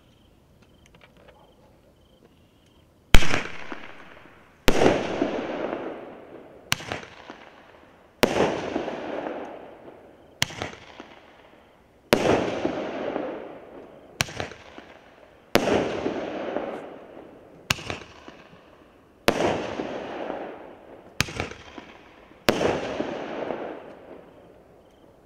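A consumer fireworks battery (cake) fires its aerial shells in sequence: after a few quiet seconds comes a string of about a dozen sharp bangs, one every second and a half to two seconds. Each bang dies away in a fading crackling hiss.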